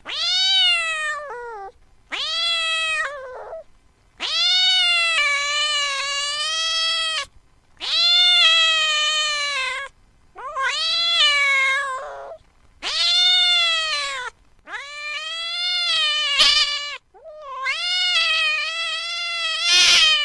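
Kitten meowing repeatedly: eight long, drawn-out, high-pitched meows, each rising then falling in pitch, with short pauses between. A sharp click is heard about two thirds of the way through and another near the end.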